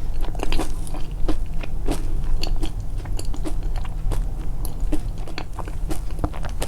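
Close-miked chewing of crunchy food, a quick irregular run of small crunches and clicks.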